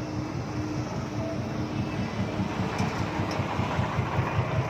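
A dump truck's diesel engine idling, heard from inside the cab, with an even low throb.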